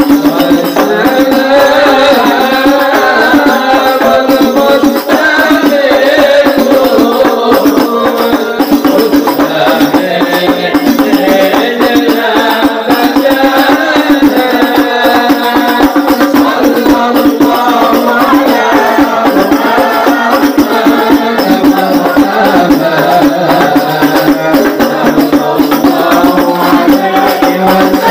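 A sholawat group singing devotional praise together over a fast, steady rhythm of hand-beaten frame drums, in the Banjar Habsyi style.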